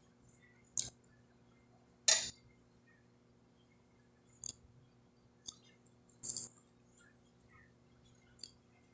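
Close-miked eating sounds: about six short, sharp crunches and mouth clicks a second or two apart, the loudest about two seconds in, as breaded fried fish is chewed and picked apart by hand.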